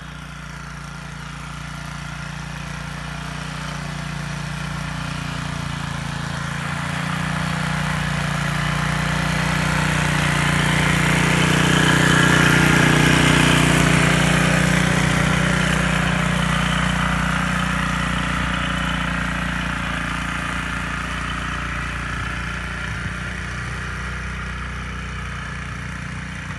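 Small engine of a walk-behind grass mower fitted with a front snow blade, running steadily as it pushes snow along a lane. It grows louder as the machine comes closer, is loudest about halfway through as it passes, then fades as it moves away.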